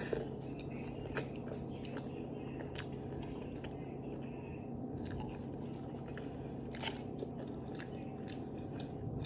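A bite into a toasted chicken avocado sandwich right at the start, then close-up chewing with scattered small clicks and smacks.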